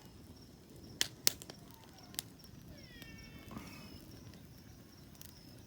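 Quiet farmyard ambience: a faint steady high tone, a few sharp knocks, and a short high animal call with falling pitch about three seconds in.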